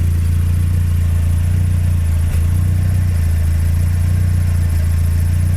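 Mazda Miata four-cylinder engine idling steadily, with a faint, fast cricket-like chirping from the clutch slave cylinder: its pushrod vibrates with the engine and rubs against the throw-out fork lever, a sign that it needs more and heavier grease.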